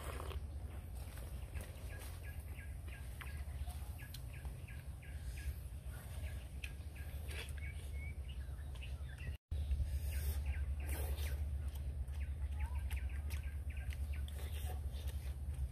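Forest ambience: birds chirping over a steady low rumble, with many short, scattered clicks and taps.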